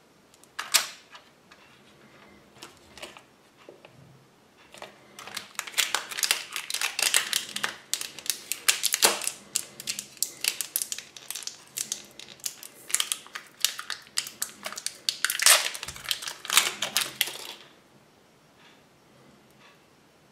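Small plastic toy parts and their plastic wrapper being handled by hand: a few scattered clicks, then from about five seconds in a dense run of crackling clicks for about twelve seconds that stops near the end.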